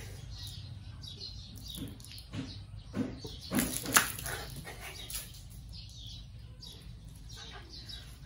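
Small birds chirping, with a few short, sharp splashes about three to four seconds in as water from a plastic dipper is poured over a person.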